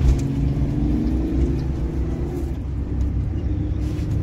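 Airboat engine and propeller running steadily, a loud low drone whose pitch rises a little about a second in and then holds.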